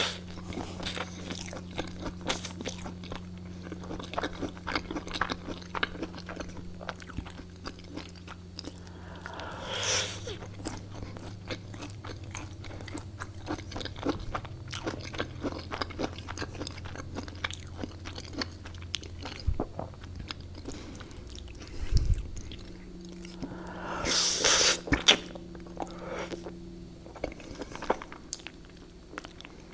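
Close-miked eating sounds: crunchy bites and steady chewing with many small wet mouth clicks over a faint low hum. There are two louder, second-long rushing sounds, one about ten seconds in and one near the end, and a low thump just after twenty seconds.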